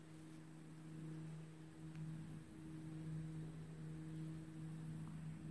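Boat motor running with a faint, steady low hum over a light background hiss.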